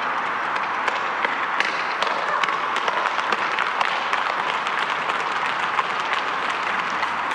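Audience applauding: a steady wash of many irregular hand claps.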